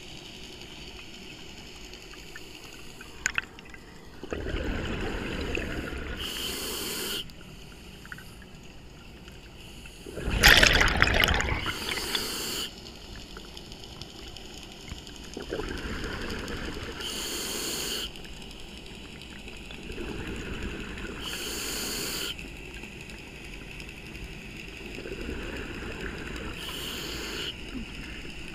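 Scuba diver breathing through a regulator underwater: bubbling exhalations alternating with short hissing inhalations, about one breath every five seconds, the loudest bubble burst about ten seconds in.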